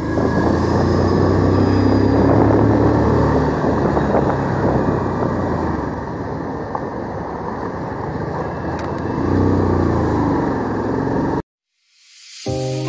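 Motorcycle engine running steadily on the move, with a rush of wind and road noise, swelling briefly about nine to ten seconds in. It cuts off suddenly near the end, and background music starts a second later.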